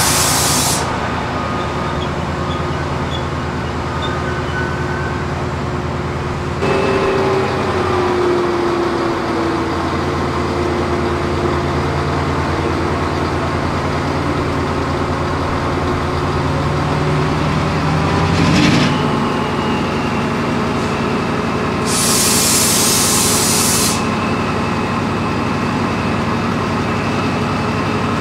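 Class 68 diesel-electric locomotive's Caterpillar V16 engine idling steadily in the station, its note shifting about six and a half seconds in. The air brakes let out a loud hiss in the first second and again about two-thirds of the way through.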